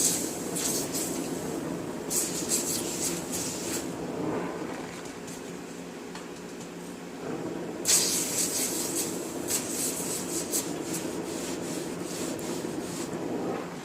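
Power tool abrading the thin sheet metal of a van's quarter panel in repeated rasping passes over a steady motor hum, the longest pass about halfway through.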